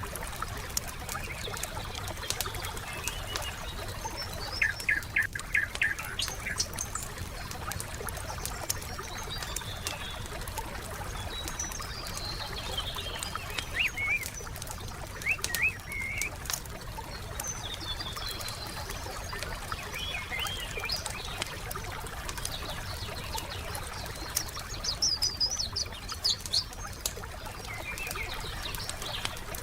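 Wood fire crackling with steady sharp pops and snaps, under songbirds chirping in short phrases a few seconds in, around the middle and again near the end.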